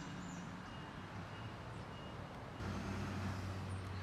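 A vehicle engine or traffic running with a steady low hum, which gets louder about two and a half seconds in.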